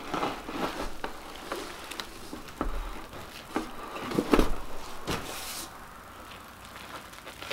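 A cardboard box and its packing being handled while a headlight is taken out: scattered knocks and rustles, the loudest about four seconds in, with a brief swish a second later.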